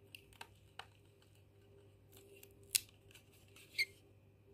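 Faint small plastic clicks and ticks as test strips are handled in an Easy Touch GCU blood meter, one strip coming out and another pushed into the slot. The sharpest click comes about two-thirds of the way in, with another near the end.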